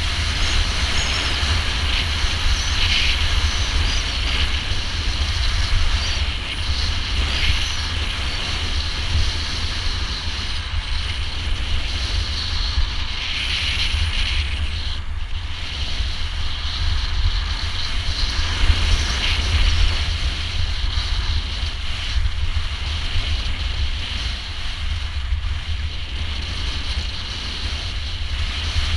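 Skis hissing and scraping over snow, swelling briefly every few seconds, under a steady low rumble of wind buffeting the microphone.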